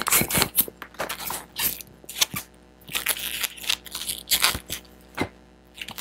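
Irregular squeaks and rubbing scrapes from an inflated 160 latex modelling balloon being handled and stretched between the hands.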